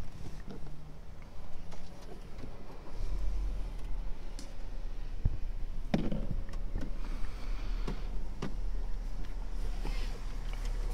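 Low steady rumble of a Honda car heard from inside the cabin, setting in about three seconds in, with a few short clicks and knocks from the controls.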